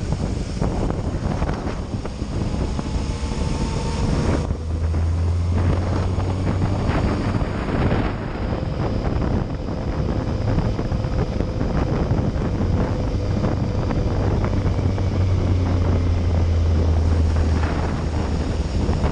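Yamaha Fazer motorcycle riding on a wet road: engine running under heavy wind noise on the microphone, mixed with tyre hiss. A steady low engine drone swells for a few seconds at a time, twice.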